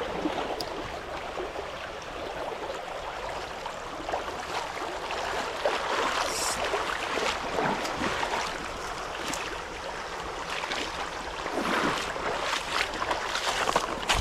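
Small creek's water running steadily, with brief sharper sounds now and then.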